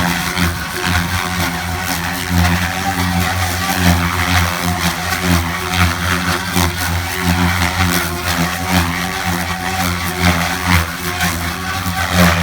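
Goblin 570 Sport electric RC helicopter in flight, its Xnova motor and rotor blades making a steady low hum at an even pitch with a hiss over it.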